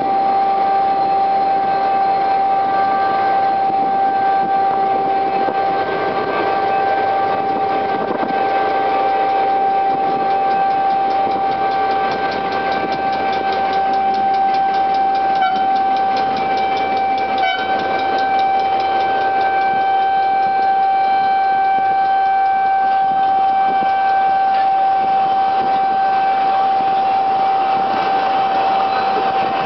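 Horn of a Henschel HGMU-30 diesel-electric locomotive blowing one steady, unbroken high tone, wavering briefly twice about halfway through; the horn is faulty and won't sound properly. Beneath it the locomotive's engine runs and the train rolls as it pulls away.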